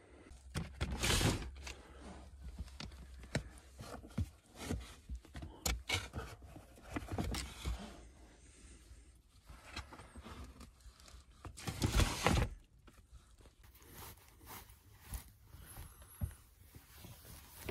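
Clothes rustling and items scraping and knocking as someone rummages through a storage bin in a car's cabin and wraps a knit scarf around his neck. Irregular rustles throughout, loudest about a second in and again about twelve seconds in.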